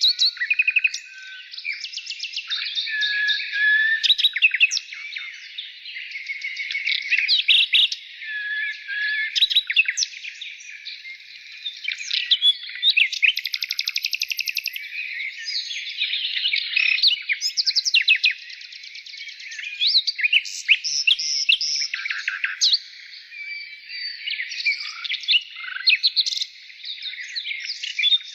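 Birds chirping and singing in a dense, continuous chorus of overlapping quick tweets and rapid trills at several pitches.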